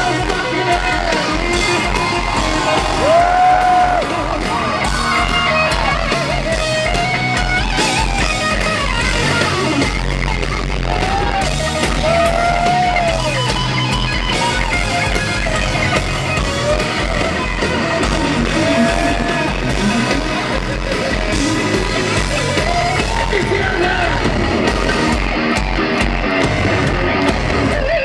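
Live heavy metal band playing loud over the arena PA, with electric guitar lead lines bending in pitch over drums and bass.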